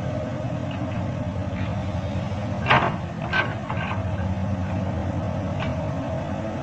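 Komatsu PC200 excavator's diesel engine running steadily, with a loud clank about two and a half seconds in followed by a few lighter knocks over the next second.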